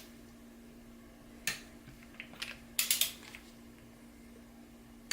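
Hand tools clicking and clinking on the cylinder head bolts of a Subaru EJ22 turbo engine as they are tightened: a few short sharp clicks, the loudest cluster about three seconds in, over a steady low hum.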